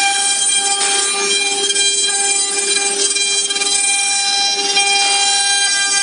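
Small CNC router's spindle running at high speed with a steady whine while its bit engraves letters into a wooden board, with the noise of cutting under the whine.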